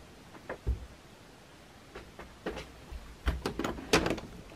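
Handling noise: a series of irregular knocks and thumps as the camera is picked up and carried, with the sharpest ones clustered near the end.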